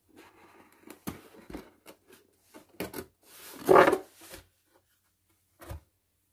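Cardboard kit box being opened by hand: rubbing and light taps of cardboard, a louder sliding scrape of about a second midway through, and a short knock near the end.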